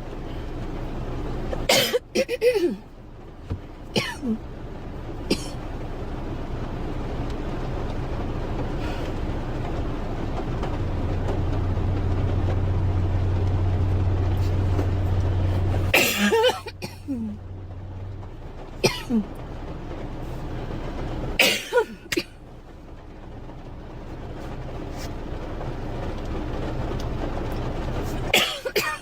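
A girl coughing in short fits, a cough or two at a time with long pauses between, the loudest fits about 2, 16, 21 and 28 seconds in. A steady rumbling noise runs underneath and swells in the pauses.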